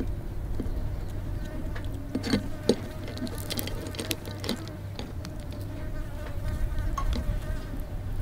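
Hands handling a raw mantis shrimp and rubbing a crumbly grated stuffing onto its shell: scattered small clicks and crackles of shell and crumbs, the sharpest a couple of seconds in, over a steady low hum and a thin insect-like buzz.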